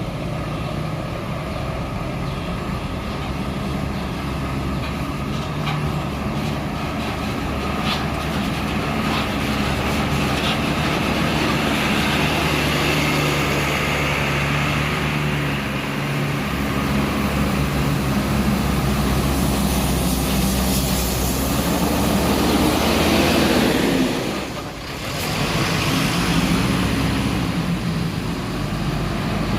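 Large diesel bus engine running on the road, with a steady low drone that builds louder over the first twenty-odd seconds. The sound drops away briefly about 25 seconds in, then carries on.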